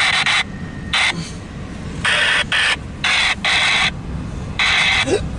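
Double-stack intermodal freight train rolling past, heard from inside a car as a steady low rumble. Over it come about eight loud, hissing bursts, each under half a second, at uneven intervals.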